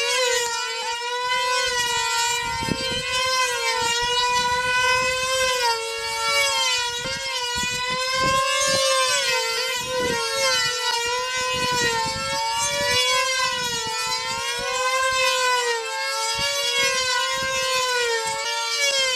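Two control-line combat model planes' small two-stroke glow engines running at very high revs, two high-pitched whines that waver and cross in pitch as the planes circle.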